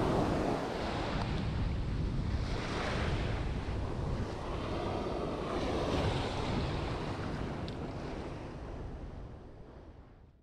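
Ocean surf washing up the beach and foaming over the sand in the shallows, with wind buffeting the microphone. The sound fades out over the last couple of seconds.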